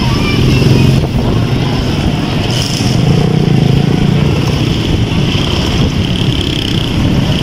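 Engine of a small vehicle running steadily while driving, with road and street traffic noise; the engine note swells a little in the middle.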